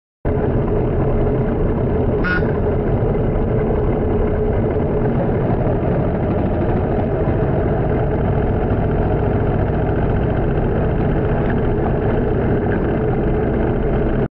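Yamaha MT 125 motorcycle under way, its engine running steadily under wind noise on the bike-mounted microphone, with a brief high-pitched chirp about two seconds in.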